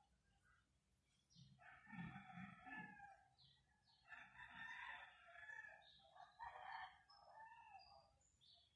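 Roosters crowing faintly in the distance, three long crows one after another.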